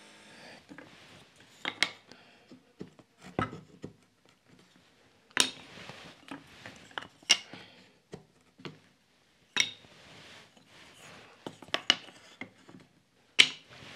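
Scattered light clicks and knocks of hand tools and small wooden lattice bars being handled on a wooden workbench, with short stretches of faint scraping as a marking gauge is drawn along the wood to scribe mortise lines.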